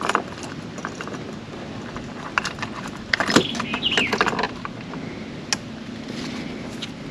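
Handling noise of a snagged fishing lure being worked free from tree branches: scattered clicks, light rattles of hooks and line, and rustling, with a short falling squeak about four seconds in.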